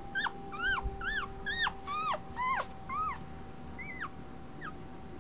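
Day-old miniature Australian Shepherd puppy squeaking and whimpering: a run of about eight high, thin cries, roughly two a second, each rising and then dropping in pitch, growing fainter after about four seconds. A steady faint hum lies underneath.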